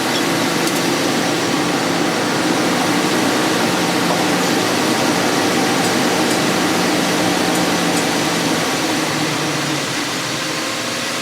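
Toyota 1G-FE inline-six engine running steadily on its first start after new main and connecting-rod bearings, judged to sound normal. It drops slightly in level near the end.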